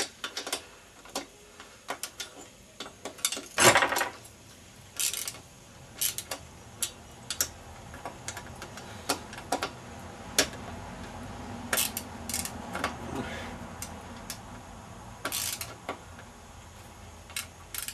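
Hand tools clinking and clicking on metal while a moped exhaust and its mounting are adjusted: scattered sharp metallic ticks and knocks, with a short scraping rasp about four seconds in.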